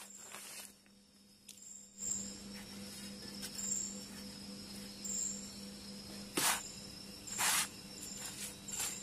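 Crickets chirping in short high bursts every second or two. Two brief, louder contact sounds about six and a half and seven and a half seconds in come from a chapati being handled on a griddle pan over a portable gas stove.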